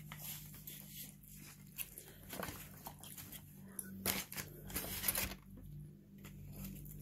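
Close-up eating sounds: chewing and mouth noises with scattered clicks and scrapes as mac and cheese is eaten from a plastic spoon. A few sharper clicks come about four and five seconds in, over a faint steady hum.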